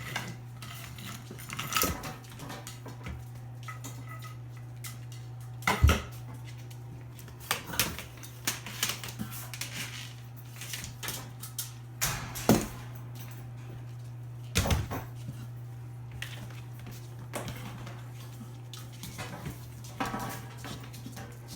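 Scattered sharp clinks and clattering knocks, like dishes or metal objects being bumped, as puppies move about their pen. A steady low hum runs underneath.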